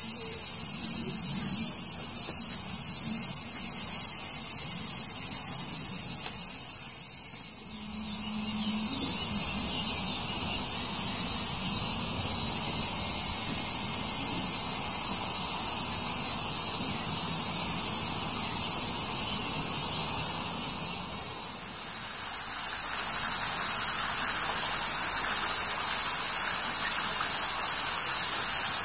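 A high-pitched, steady chorus of cicadas.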